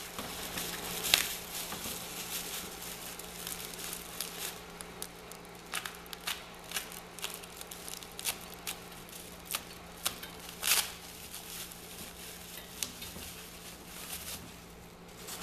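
Clear plastic packaging being pulled off and crumpled by hand, crinkling with irregular sharp crackles over a low steady hum.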